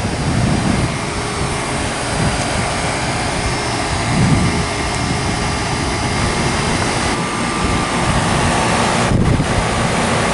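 1995 Carrier 38YKC 1.5-ton heat pump running in cool mode: a steady rush of the condenser fan with a faint steady hum from the unit.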